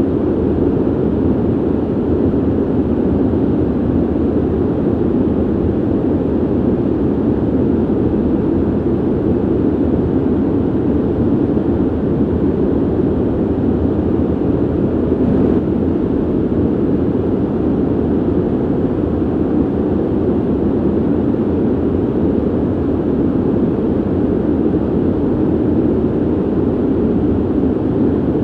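Steady ventilation noise: an even, low rushing of air with no tones and no changes.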